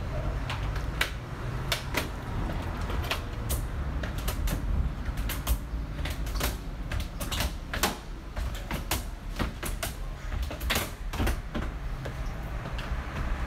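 Irregular light clicks and knocks, a few a second, over a steady low rumble.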